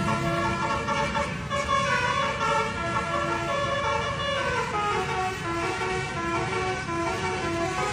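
A bus's basuri (telolet) multi-tone musical air horn playing a tune of held notes stepping up and down, over a low rumble.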